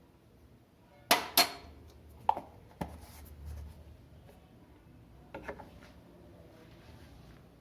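Spoon clinking against a cup while honey is stirred into the hot remedy: two loud clinks about a second in, then a few fainter knocks.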